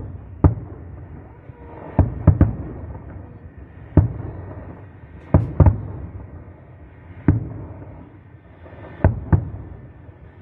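Aerial firework shells bursting overhead: about ten sharp bangs at irregular intervals, several in quick pairs, with a low rumble between them.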